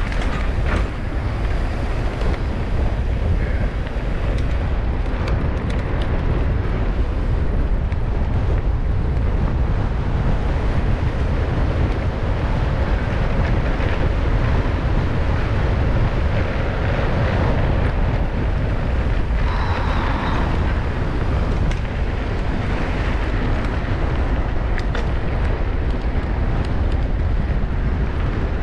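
Wind buffeting the microphone of a mountain bike in motion, with steady tyre noise on a dirt trail and scattered faint clicks and rattles.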